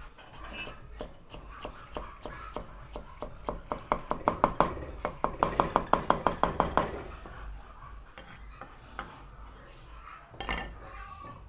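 A cleaver cuts ginger into thin strips on a wooden chopping board: a run of quick knife strikes on the board, speeding up to about five or six a second, that stops about seven seconds in. A single louder knock follows near the end.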